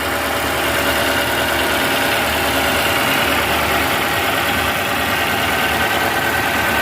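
Toyota Camry's four-cylinder VVT engine idling steadily after a head gasket and timing chain replacement. It runs smooth: the tappet noise it had at first start has stopped now that oil has reached the cams and VVT.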